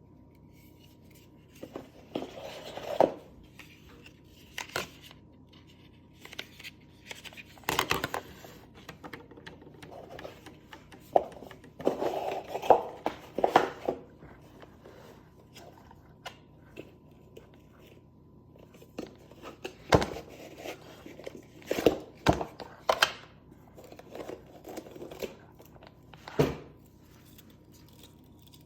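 Packaging being handled and opened: irregular crinkling and tearing with scattered sharp knocks.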